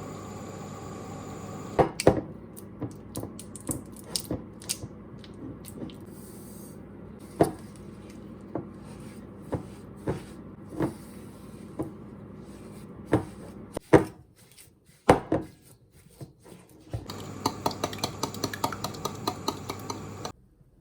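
Kitchen utensils knocking and scraping against bowls and a wooden surface during baking preparation: a long series of separate sharp knocks. Near the end comes a quicker run of rapid clicking over a hum. A steady hum fills the first couple of seconds before the knocks begin.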